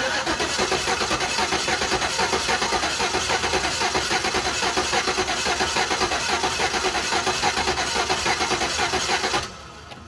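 GMC Envoy Denali's 5.3-litre V8 cranking over on the starter with one valve cover off, a steady pulsing churn for about nine seconds that stops abruptly near the end.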